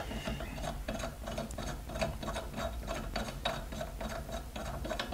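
Steel bolts of a bearing puller being spun in by hand against a spacer plate on a snowmobile bogie cheek: a steady run of light metallic ticks, about four a second.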